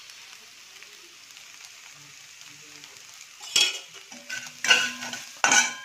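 Scrambled eggs frying in oil in a metal kadai, a faint steady sizzle. From about three and a half seconds in, a steel spatula stirs and scrapes them against the pan in several loud strokes.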